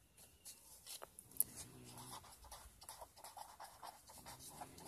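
A pen writing a word by hand on paper: faint scratching strokes, with a sharper tap about a second and a half in.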